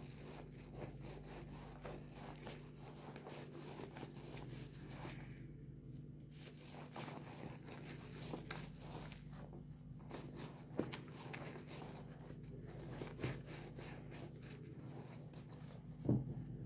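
A foam-soaked kitchen sponge squeezed and rubbed by hand in a basin of soapy water: a dense, fine crackle and squelch of lather. There are a few sharper squelches, the loudest near the end.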